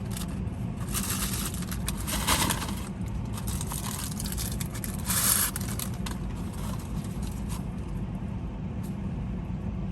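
Steady low hum of a car idling, heard from inside the cabin, with a few short bursts of rustling and scraping as food is handled.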